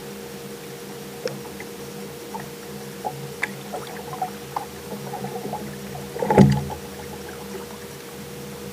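Small-boat sounds: water sloshing against the hull under a steady hum, with scattered light clicks and knocks and one louder thump about six and a half seconds in.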